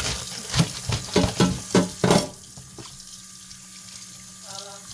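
Kitchen tap running into a sink, with a quick run of splashes and knocks over the first two seconds, then a quieter, steady flow.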